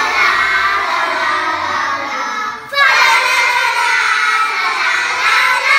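A group of kindergarten children singing together, with a short pause between two sung lines about halfway through.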